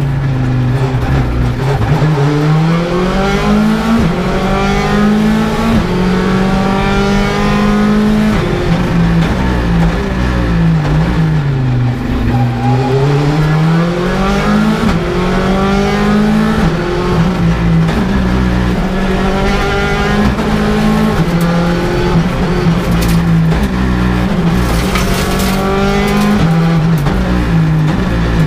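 Hyundai i20 R5 rally car's 1.6-litre turbocharged four-cylinder engine heard from inside the cabin, revving up and dropping back again and again as the car is driven hard through the gears.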